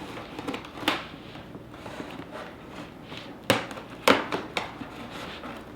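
Scissors cutting open a cardboard box: quiet rustling and scraping of cardboard and tape, with three sharp snips or knocks, about a second in and twice more near three and a half to four seconds.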